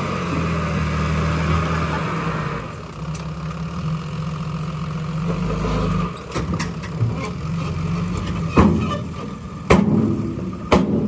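Bulldozer's diesel engine running steadily, easing off a little a few seconds in. In the second half come several sharp knocks, the loudest near the end.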